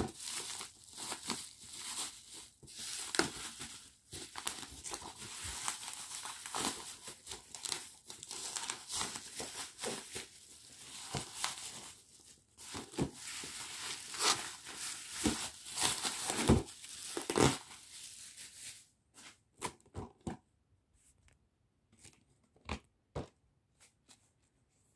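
Plastic bubble wrap crinkling and crackling as it is pulled off a boxed action figure, with sharp crackles throughout. About three-quarters of the way through the rustling stops, leaving a few light taps and knocks as the cardboard box is handled.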